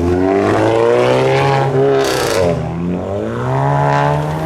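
Modified car's engine revving hard as it pulls away: the pitch climbs, drops with a short hiss about two seconds in, then climbs again.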